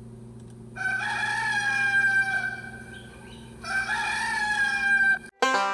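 A rooster crowing twice, each crow about a second and a half long. The second crow cuts off sharply, and banjo music starts just before the end.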